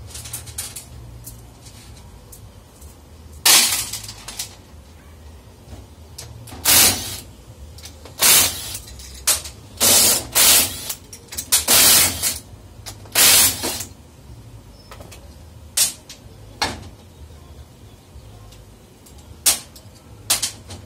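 Cordless impact wrench run in short bursts, about a dozen in all and most of them in the middle, spinning out the bolts that hold the halves of a Ford AOD/4R70W transmission oil pump together.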